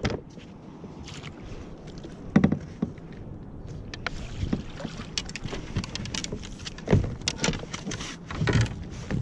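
A hooked cabezon being scooped up with a landing net beside a fishing kayak: water splashing and the net and gear knocking against the kayak, with a few sharp knocks spread through.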